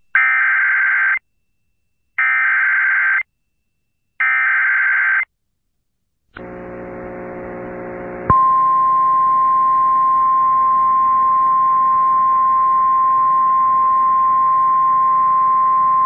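Emergency Alert System SAME header: three one-second bursts of warbling digital data tones, each followed by a second of silence. Then a low buzzing hum, and about eight seconds in a single steady high tone starts: the 1050 Hz weather-radio warning alert tone.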